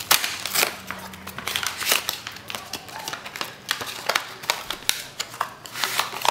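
Plastic wrapper of a trading card pack crinkling and tearing as it is pulled open by hand, a busy run of irregular sharp crackles and rustles.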